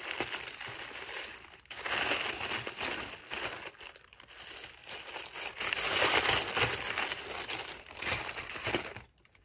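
Tissue paper crinkling and rustling in uneven bursts as a wrapped item is unwrapped by hand. The rustling is loudest about six seconds in and stops shortly before the end.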